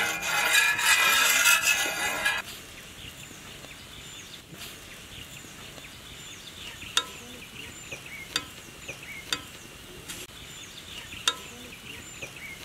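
Oil sizzling loudly on a large flat iron griddle for about two and a half seconds, then dropping to a quieter frying hiss. Over it come a few sharp clicks of a metal spatula on the griddle and a high chirp repeating steadily.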